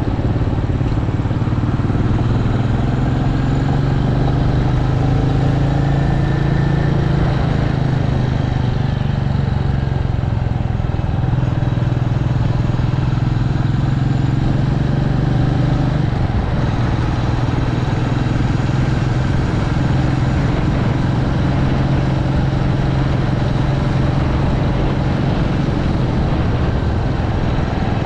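Royal Enfield Meteor 350's single-cylinder engine running steadily while riding, heard from on the bike over a constant rush of noise. Its note shifts a little about ten seconds in and again around sixteen seconds in.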